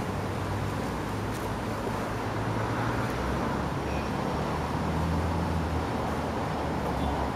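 City street traffic: cars driving past in a steady, continuous rumble of engines and tyres.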